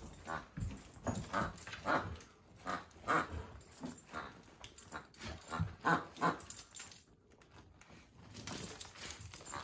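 Dog playing with a plush toy, making a string of short, irregular noises as it mouths and tugs at it, with a lull of about a second near the end.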